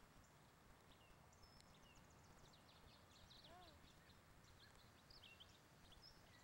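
Quiet outdoor ambience with faint, scattered high bird chirps, and one short soft call about halfway through.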